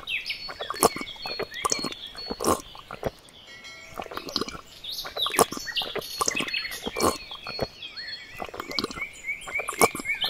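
Birds chirping and twittering: a busy run of short, sharp calls and quick chirps.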